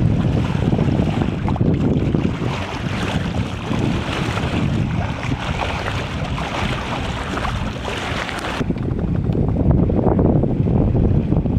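Wind buffeting the microphone over the hiss and rush of water along a sailboat's hull under way. The higher hiss drops away abruptly about three quarters of the way through, leaving mostly the low wind rumble.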